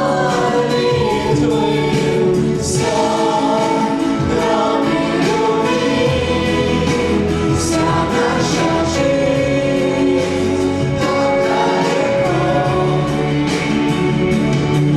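Music: a song with choir-like singing over instrumental backing.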